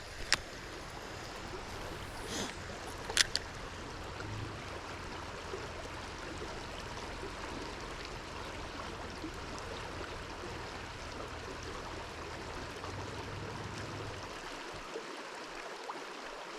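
Steady rush of flowing river water, with a few sharp clicks in the first few seconds.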